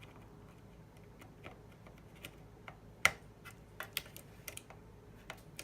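Light plastic clicks and taps as a desktop RAM module is handled and lined up over its motherboard memory slot, with one sharper click about three seconds in.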